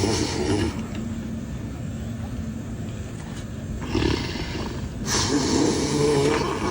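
A sleeping person snoring loudly. One long snore trails off just under a second in, a short snort comes near four seconds, and another long snore starts about five seconds in.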